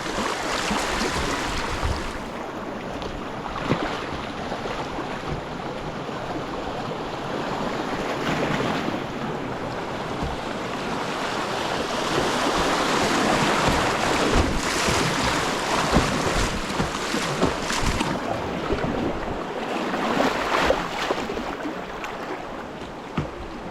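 Whitewater rushing around a kayak running a rapid, with frequent short splashes; the water grows louder about halfway through.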